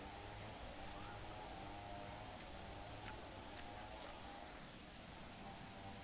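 Steady high-pitched insect drone of the forest, with a faint low hum underneath and a few light crackles of footsteps on dry bamboo leaf litter.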